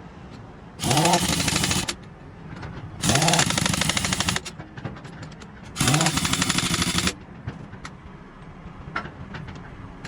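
Pneumatic impact wrench hammering on truck wheel nuts in three bursts of about a second each. Each burst opens with a short rising whine as the air motor spins up, then a rapid rattle of blows. A few light clicks fall between the bursts.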